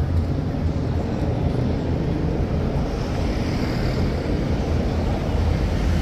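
Busy city-street road traffic: a steady rumble of engines and tyres from vehicles passing close by.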